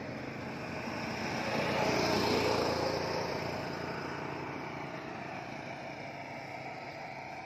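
A motor vehicle passing on the bridge road: a rushing engine-and-tyre noise that swells to its loudest about two seconds in, then slowly fades away.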